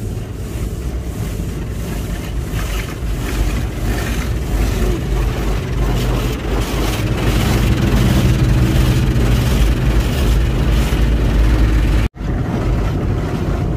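Automatic car wash spraying water over a car, heard from inside the cabin: a loud, steady rush of water jets hitting the glass and body, with the wash machine's motor hum underneath, growing somewhat louder. It cuts out abruptly for an instant about twelve seconds in, then carries on.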